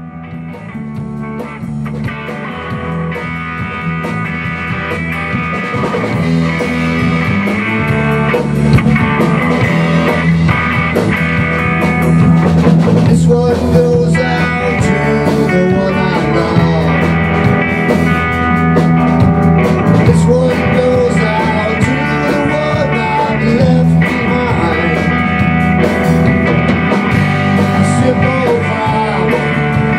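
A live rock band of electric guitar, electric bass and a Tama drum kit playing a song in a small rehearsal room. It starts up at the beginning and builds in loudness over the first few seconds, then carries on full and steady.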